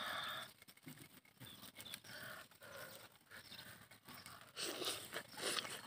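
A man eating grilled squid: a brief growling vocal sound at the start, then mouth noises of biting, tearing and chewing the squid, loudest about five seconds in.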